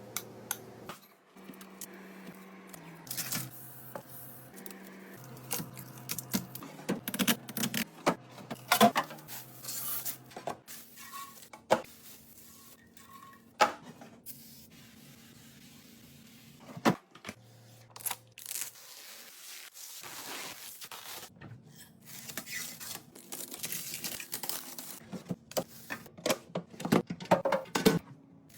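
Groceries being unpacked and stacked into a refrigerator: plastic packaging crinkling and tearing, with many sharp clicks and knocks as containers and produce are set down on the shelves.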